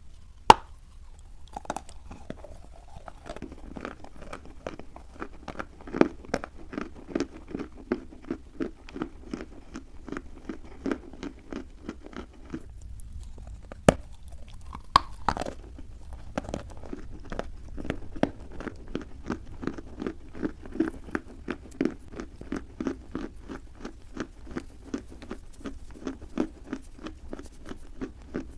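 Dry clay being bitten and chewed close to the microphone. A sharp bite near the start and another about halfway are each followed by a long run of steady crunchy chewing, about two to three crunches a second.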